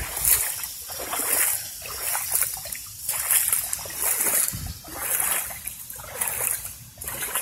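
Footsteps wading through shallow floodwater, a splash with each step about once a second.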